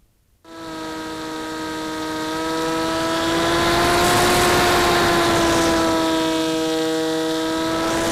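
RC glider in flight: a steady whine with overtones starts abruptly about half a second in, with air rushing over the airframe. The whine rises slightly in pitch and the rush grows louder midway, then both ease off.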